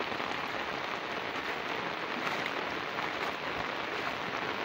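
Heavy rain falling steadily on a waterlogged field, onto standing water and crop leaves: an even hiss flecked with the patter of countless drops.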